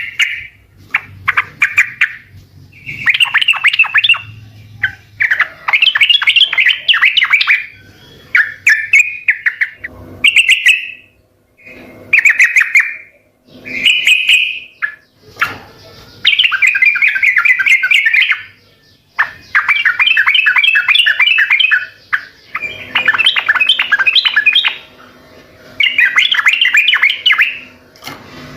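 Yellow-vented bulbul (trucukan) singing: loud bursts of rapid, bubbling chattering notes, each phrase one to three seconds long, repeated after short pauses.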